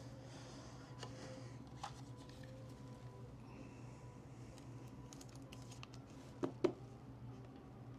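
Quiet room with a steady low hum and a few light clicks and taps: one about two seconds in and a quick pair about six and a half seconds in.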